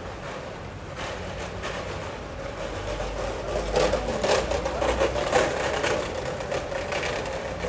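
City street sounds: a steady low traffic hum. About halfway through it swells for a couple of seconds with a run of irregular clattering, like a vehicle passing close by.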